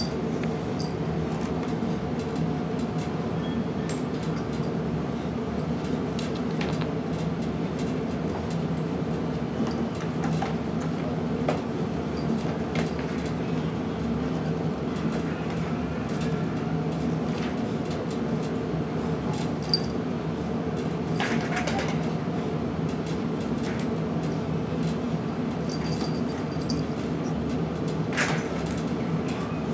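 A steady mechanical hum with a few faint scattered clicks.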